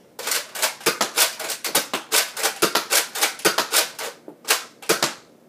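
Nerf dart blaster fired over and over in quick succession: a fast run of sharp plastic clacks, about five a second, spacing out near the end.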